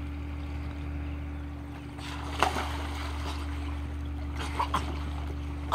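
Swimming-pool water sloshing and lapping as a child swims, over a steady low hum, with a sharper splash about two and a half seconds in and a couple of smaller ones near the end.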